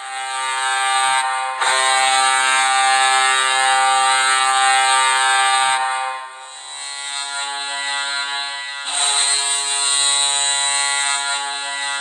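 NHL arena goal horn blowing one long, steady blast. It dips about six seconds in and swells again about three seconds later.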